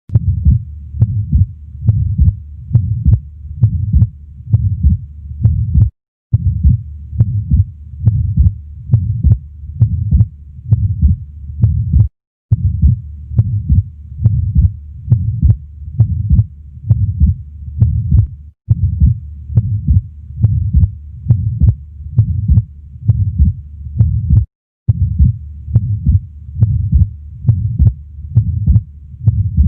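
Stethoscope recording of heart sounds at the left base (pulmonic area) in an atrial septal defect, beating a little over once a second with the defect's murmur between the beats. The recording cuts out briefly about every six seconds where a short clip loops.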